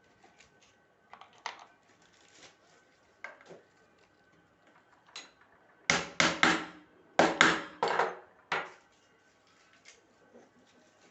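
Hard objects knocked and clattered together: a few light taps, then a run of about six loud, sharp knocks with a little ringing, about six to nine seconds in.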